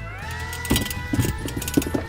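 Background music: held tones that slide up in pitch at the start, with percussive hits coming in under a second in.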